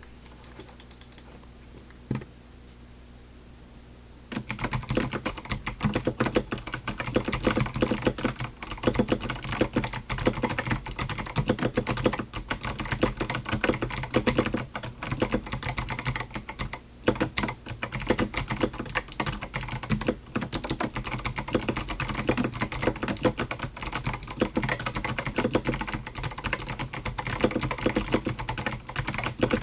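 Typing on a HyperX Alloy Rise mechanical keyboard fitted with Kailh Box White V2 clicky switches, which click on both the downstroke and the upstroke. A single click about two seconds in, then steady fast typing from about four seconds in.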